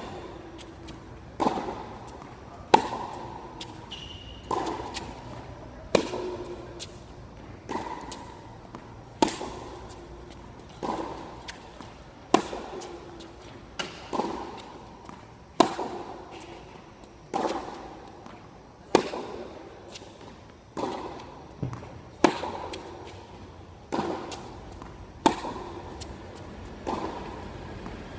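Tennis rally: racket strings striking the ball back and forth about every one and a half seconds, the near player's shots louder than the far player's, each with a short echo under the court's roof.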